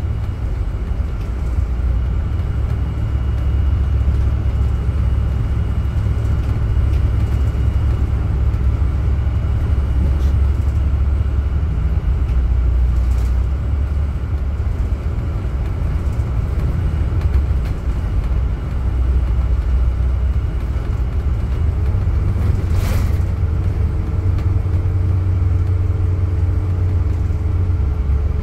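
Cabin noise inside a 2016 MCI D4500CT coach running at highway speed on its Cummins Westport ISX12-G natural-gas engine: a steady low rumble of engine and road. Late on there is a single short knock, after which a steady hum joins the rumble.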